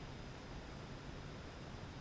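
Steady faint outdoor background hiss with a low rumble, without distinct bird calls.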